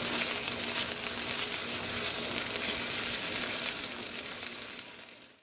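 Minced garlic and ginger sizzling in hot oil in a Lodge 14-inch cast iron wok as they are stirred with a silicone spatula: a steady frying sizzle that fades out near the end.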